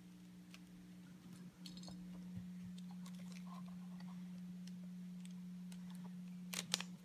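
A plastic mirror cube being twisted by hand: scattered soft clicks of the layers turning, with two sharper clicks near the end, over a steady low hum.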